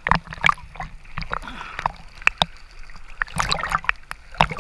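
Choppy sea water splashing and slapping irregularly against an action camera at the surface, with gurgling as the housing dips in and out of the waves.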